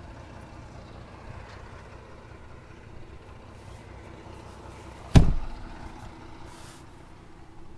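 Steady low hum of an idling engine, then one loud heavy thump about five seconds in that dies away quickly.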